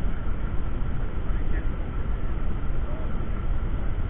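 Steady low rumbling wind noise buffeting a body-worn camera's microphone.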